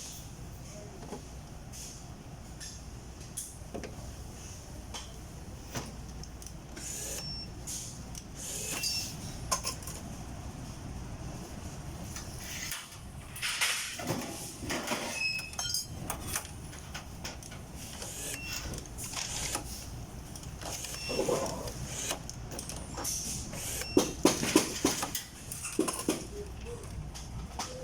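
Workshop noise: a steady low machine hum with scattered metallic clanks and knocks, some ringing briefly, and a cluster of louder sharp knocks near the end.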